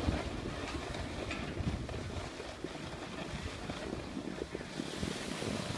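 Wind buffeting a phone's microphone while snowboarding downhill, mixed with the rush of the board sliding over snow; a brighter hiss comes in near the end.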